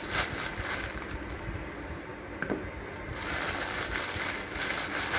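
Thin clear plastic bag crinkling and rustling as it is pulled and worked off the bottles inside it, in irregular crackles.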